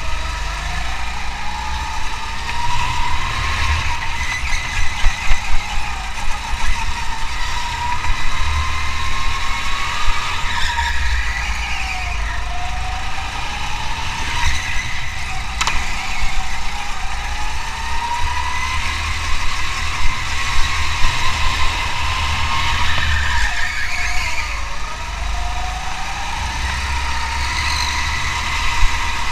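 Race car engine under hard driving, over a heavy low rumble. Its note climbs steadily for several seconds at a time and drops back sharply about halfway through and again near the end.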